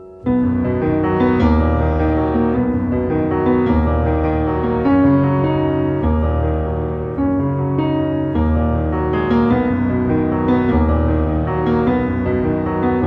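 Background music led by piano over a steady bass beat, coming in loudly just after the start.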